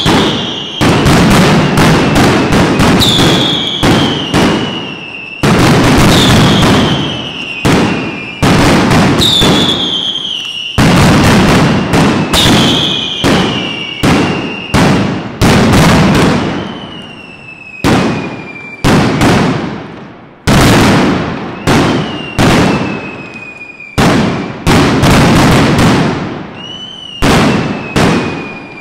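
Mascletà firecrackers and salutes going off in rapid volleys of loud bangs, groups of sharp cracks every second or two, with falling whistles between the groups.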